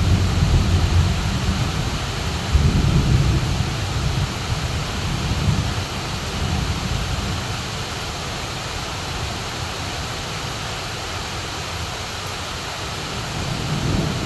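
Heavy rain pouring steadily, with low rumbles of thunder in the first few seconds that fade into the hiss of the downpour.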